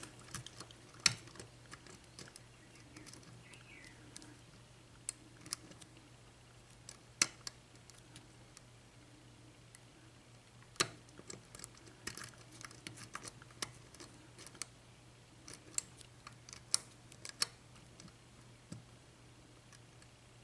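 Irregular small metal clicks and ticks from a lock pick working the pin tumblers of a lock cylinder under tension, in scattered runs with short gaps, over a faint steady hum.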